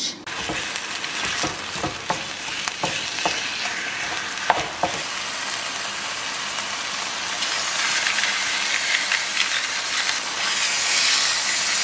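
Ground chicken sizzling steadily as it browns in a nonstick skillet, with a wooden spatula knocking and scraping in the pan through the first few seconds.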